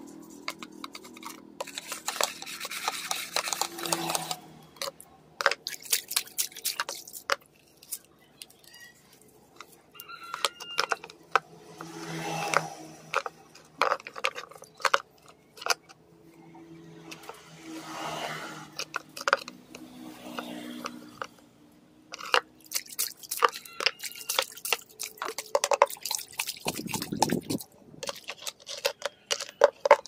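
Water sloshing and splashing in a small plastic dipper, used as a bird bath, as it is scrubbed with a brush and rubbed by hand, with many irregular clicks and knocks. Near the end there is a short rush as the dirty water is tipped out.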